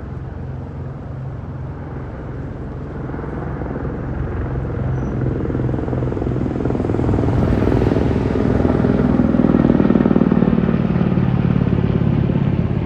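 Steady engine drone of something passing, growing gradually louder to a peak about ten seconds in, then easing slightly.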